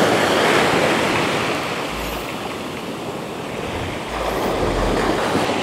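Small sea waves breaking and washing up over a sandy beach, a steady hiss of surf that eases in the middle and swells again about four seconds in.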